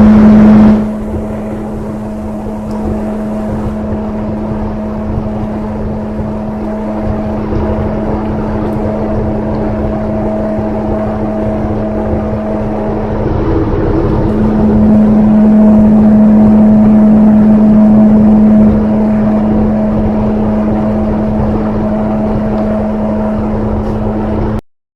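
A machine running with a steady, constant-pitched hum over a rushing noise. It starts abruptly, very loud for the first second, swells louder about 14 seconds in, eases back near 19 seconds, and cuts off suddenly just before the end.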